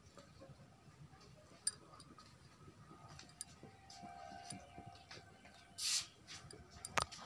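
Faint, scattered light clicks and taps in a quiet room, with one brief scuffing rustle about six seconds in.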